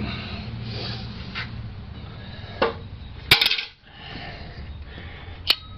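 Metal parts clinking and clanking as the timing chain cover is worked off the front of a small-block engine: a sharp click, then one loud clank with a short ring about three seconds in, and another click near the end.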